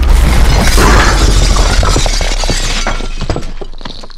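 Crash sound effect of a stone pillar shattering: a dense, heavy crash with a deep rumble, then many separate fragments clattering down as the sound fades away toward the end.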